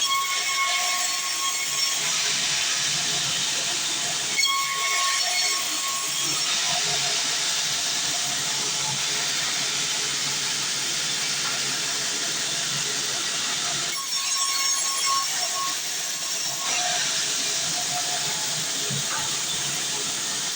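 Sawmill band saw cutting a heavy, dense log: a steady, hissing sawing noise with a faint whine, which shifts about four seconds in and again near fourteen seconds.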